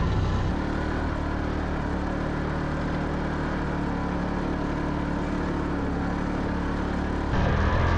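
Side-by-side UTV engine running at a steady pace on a dirt trail, a steady engine drone. Near the end the sound steps up suddenly louder.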